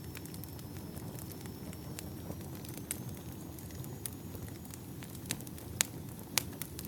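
Wood campfire burning: a steady low rush of flames with scattered crackles and a few sharper pops of splitting firewood near the end.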